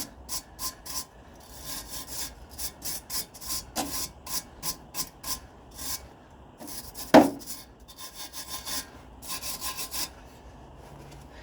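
Rapid back-and-forth scraping strokes, about three to four a second in several runs, as exhaust pipework is scrubbed clean by hand for the new back box. About seven seconds in a single sharp knock stands out above the scraping.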